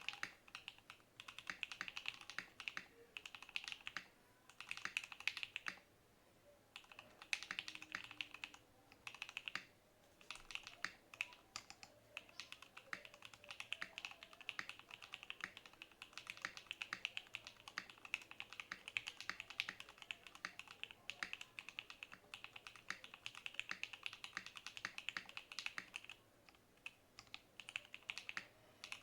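Typing on a gasket-mounted Zeroeighty TKL mechanical keyboard with an FR4 plate and lubed JWICK Black linear switches. The keystrokes come in fast, dense runs broken by short pauses.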